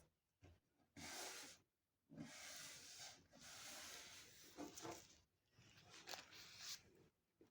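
Faint rustling and crinkling of tissue paper being handled and folded, in uneven stretches with short pauses between.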